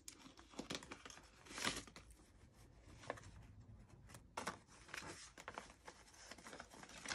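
Paper US dollar bills rustling and crinkling as they are handled and flipped through by hand: a run of soft, irregular paper rustles, with a louder rustle about a second and a half in.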